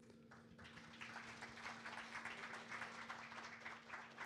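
Faint audience applause, many hands clapping, starting about half a second in and slowly building.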